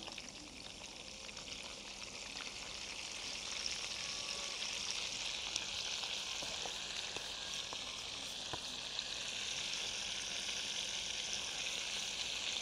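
Oil sizzling in a frying pan as pieces of partridge and dove fry with sliced tomatoes. The sizzle builds over the first few seconds and then holds steady, with a few small pops.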